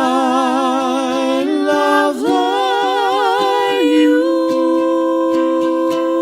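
Song with sung vocals holding long notes with vibrato, stepping to new pitches about a second and a half and two seconds in, then settling on one held note, over soft ukulele plucking.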